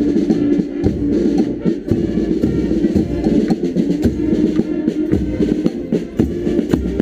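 A carnival street band of saxophones, trumpets, horns and a sousaphone plays a tune, with a steady beat from bass drums and snare drums.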